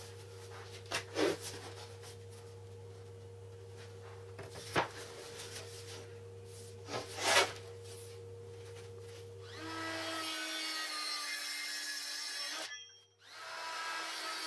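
Laminate flooring boards being positioned and slid on a wooden workbench: a few light knocks and rubs over a steady low hum. About ten seconds in, the hum gives way to a louder steady hiss with faint high tones, broken by a short gap near the end.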